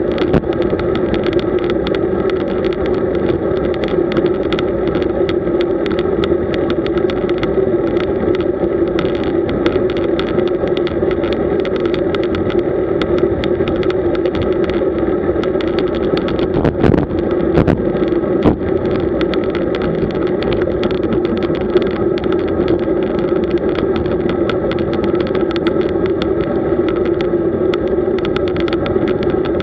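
Steady riding noise of a road bicycle on the move, with a short knock about 17 seconds in and another a second and a half later.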